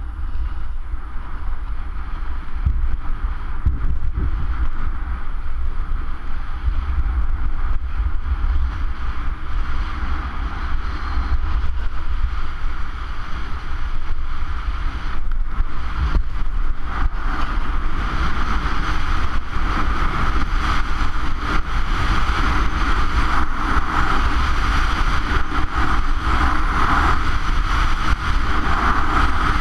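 Wind buffeting an action camera's microphone during a fast run down a groomed ski slope, with the steady scraping hiss of edges sliding on packed snow. The hiss gets louder in the second half.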